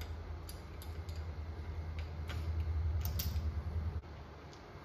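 1950 Ford F1's flathead V8 being cranked over by the starter without catching: a low steady drone that grows louder past the middle and stops suddenly about four seconds in, with a few light clicks over it. The engine won't fire, and the men suspect it is flooded with gas.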